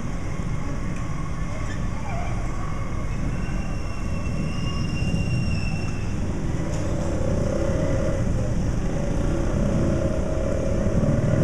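Street traffic noise: motorcycle and motorized tricycle engines running along the street, a steady low rumble that grows louder in the second half as tricycles pass close by.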